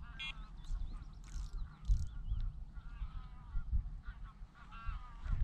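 Geese honking off and on across the water, a few calls at a time, with small birds chirping high above them and a steady low rumble of wind on the microphone.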